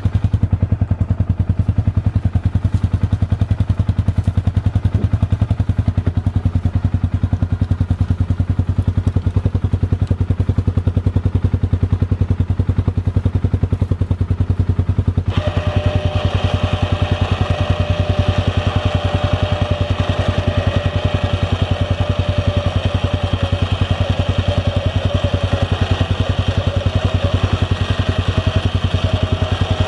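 Polaris Ranger side-by-side's engine idling steadily, with a rapid, even pulse. About halfway through, a steady higher whine and hiss join in and carry on.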